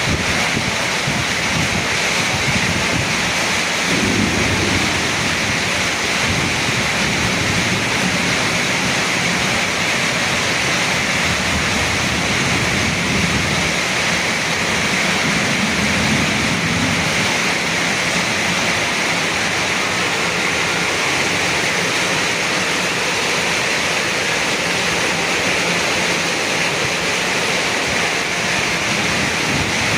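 Heavy rain pouring down steadily in a strong wind, the wind swelling in low gusts a few times.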